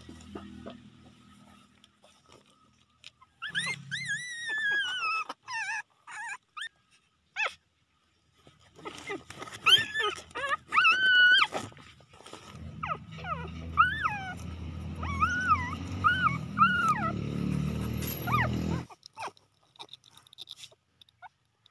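Five-day-old newborn puppies crying: a long wavering high whine a few seconds in, then a run of short squeals and repeated wavering whimpers through the middle. A low muffled noise runs under the later whimpers.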